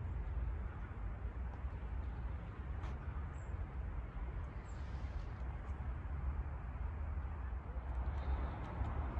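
Steady low outdoor rumble, with a couple of faint short high chirps near the middle.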